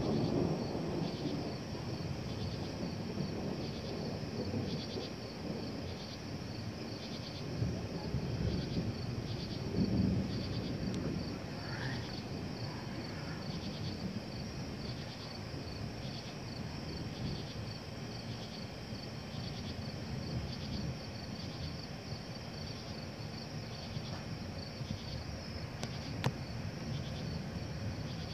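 Night insects chirping in a steady rhythm about once a second, while low thunder rumbles and fades away in the first half.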